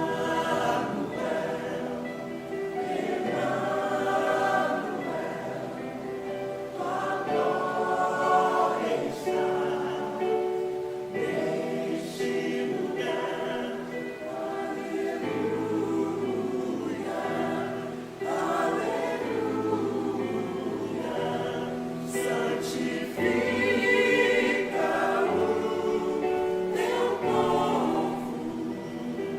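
Church choir singing a hymn, several voices in held, moving lines.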